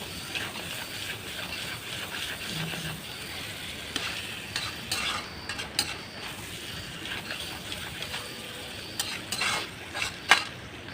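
Chicken sizzling as it fries in a pan, stirred with a metal spatula that scrapes and clicks against the pan, with one sharp clank near the end.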